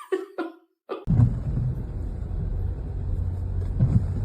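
Steady low rumble of a car in motion, heard from inside the cabin, starting abruptly about a second in after two short voice-like sounds and a brief silence.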